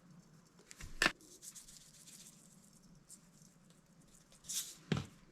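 Cajun seasoning shaken from its container onto fish fillets: light pattering and rustling, with a sharp knock of the container about a second in and another near the end.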